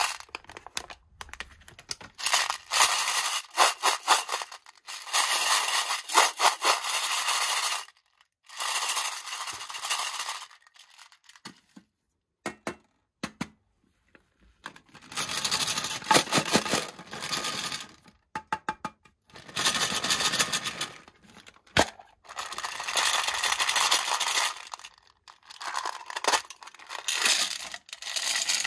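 Skittles pouring out of a crinkly plastic bag and clattering into a metal tin, in bursts of a few seconds with short pauses, along with the scrape and click of tin lids being handled and lifted off. One sharp click about two-thirds of the way through.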